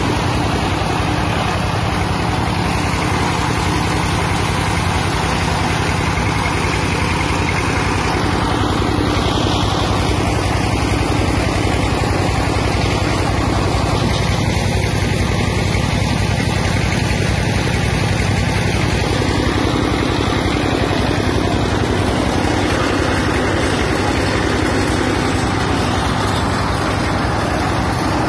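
Stationary diesel engine driving a peanut-shell grinding machine, both running steadily and loudly while dried peanut shells are fed in and ground to dust.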